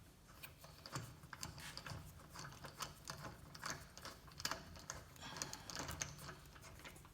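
Faint, irregular metallic clicks and light scraping of a lug nut being threaded by hand onto a car wheel stud.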